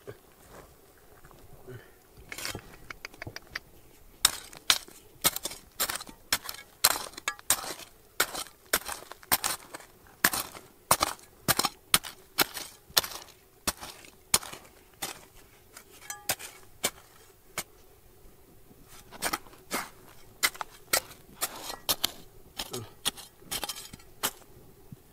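Repeated sharp clinks and knocks of hard objects striking, about two a second, with a lull a little past the middle.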